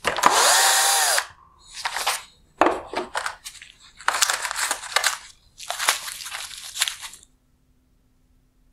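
Cordless drill/driver spinning for about a second to back out a Phillips screw, its motor pitch rising and falling. Then several spells of plastic scraping and clicking as the desiccant-pack cage is worked out of the headlight housing.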